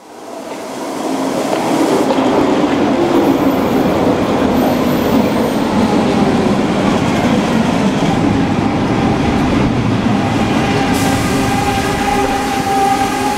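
Vancouver SkyTrain Mark I train, driven by linear induction motors, pulling into the station platform and running past: a steady rumble of wheels on the rail with a hum of several steady tones. It swells up from silence over the first second or two.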